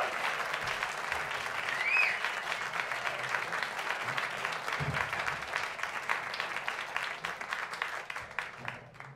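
Audience applauding, with a couple of brief cheers near the start; the clapping thins to scattered claps and dies away near the end.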